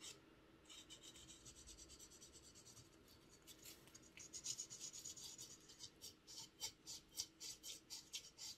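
Faint rasping of sandpaper rubbed back and forth over a hardened Milliput putty chimney on a model locomotive's body shell. The strokes become quicker and more distinct, a few a second, from about halfway through.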